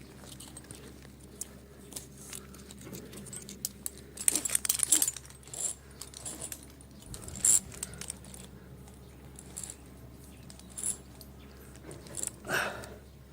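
Small metal objects jangling and clinking in scattered bursts, busiest about four to five seconds in, with a few more clinks later.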